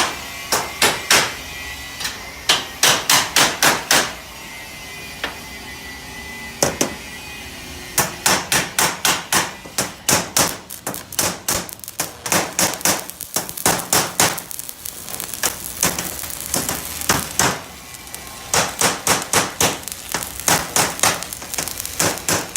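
Hammer striking metal in quick runs of blows, about three or four a second, with short pauses between runs.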